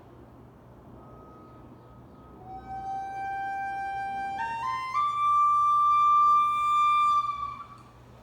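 A single held instrumental note enters a couple of seconds in, climbs in small steps to a higher pitch about halfway through, holds, and fades out near the end.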